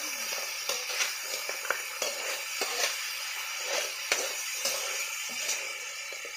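Fiddler crabs sizzling in a wok while a metal spatula stirs them, clinking and scraping against the pan at irregular moments over a steady frying hiss.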